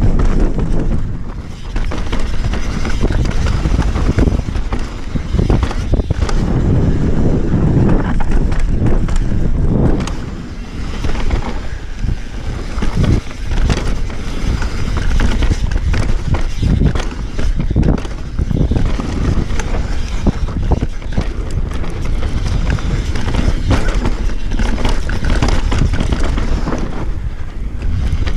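Mountain bike descending a dry dirt and rock trail at speed: wind buffeting the microphone and tyres rolling over dirt and stones, with frequent knocks and clatters from the bike over bumps and rocks.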